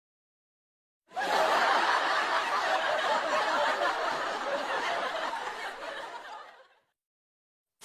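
A crowd laughing, many voices at once, starting suddenly about a second in and fading out near the end.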